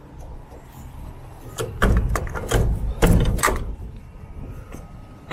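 Rear swing doors of a Kentucky Trailer moving-van trailer being shut and latched: two heavy thumps about a second apart, with metal clanks and knocks from the door and its lock bar.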